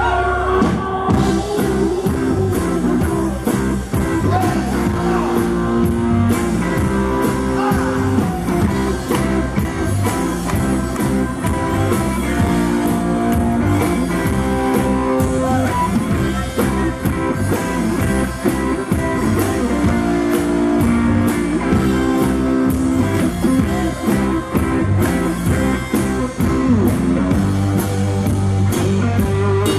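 Live rock band playing: electric guitar over a drum kit with a steady beat.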